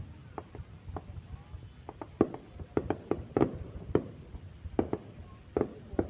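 Fireworks bursting at a distance: about a dozen sharp bangs at irregular intervals, some in quick pairs.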